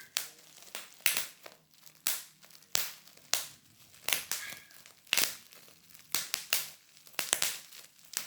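A series of sharp pops, one or two a second at uneven spacing, some coming in quick pairs or triples.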